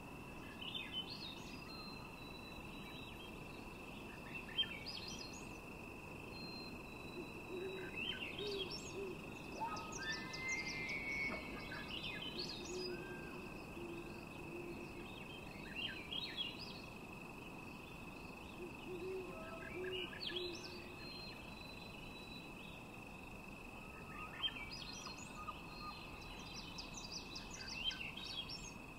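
Birds calling: scattered short chirps and trills, with soft low hooting notes every few seconds, over a steady high-pitched whine.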